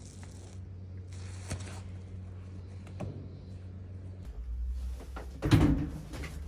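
Plastic shopping bags rustling and tools knocking as they are handled, over a steady low hum. A few sharp clicks, then a loud thump a little over five seconds in.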